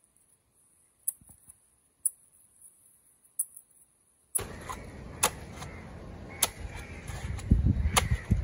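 Heavy cleaver chopping through a giant trevally head on a wooden log block, sharp strikes about once a second. About four seconds in, a steady low background rumble comes in abruptly under the chops.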